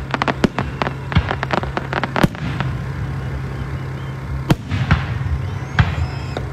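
Fireworks display going off: a quick string of sharp bangs and crackles for the first couple of seconds, then a few single booms spaced apart.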